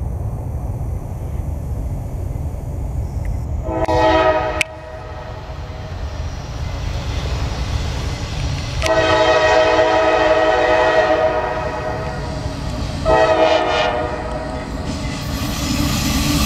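CSX diesel locomotive horn sounding three blasts, a short one about four seconds in, a long one from about nine to thirteen seconds and a short one right after, over the low rumble of an approaching loaded coal train. The train noise grows louder near the end as it draws closer.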